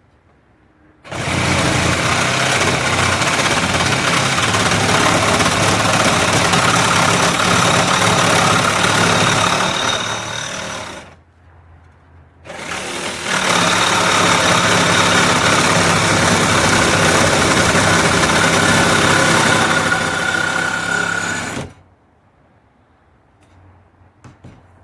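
Power tool cutting a hole through the van's sheet-metal roof: two long runs of about ten seconds each with a short pause between.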